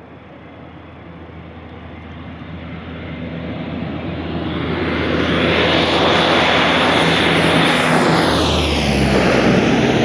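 Convair 580 air tanker's twin turboprop engines growing louder as it comes in low toward the listener, then dropping in pitch as it passes close overhead.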